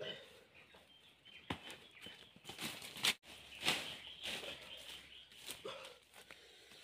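Footsteps and rustling crunches in dry leaves and undergrowth as a man carries a heavy pig on his back, with scattered knocks and scrapes. There is a brief break just after three seconds.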